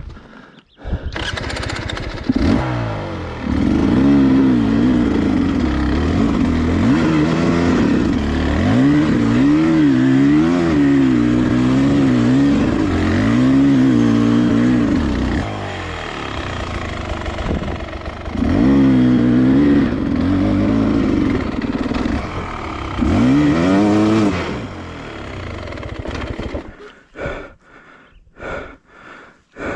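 Dirt bike engine labouring up a steep climb, its revs rising and falling over and over as the throttle is worked. It eases off twice, in the middle and again later, then dies away shortly before the end, leaving only a few short sounds.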